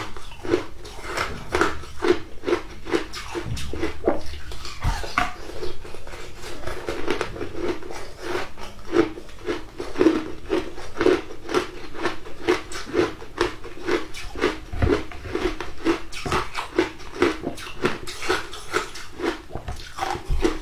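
Shaved ice being chewed: a steady run of crunching bites, about two a second.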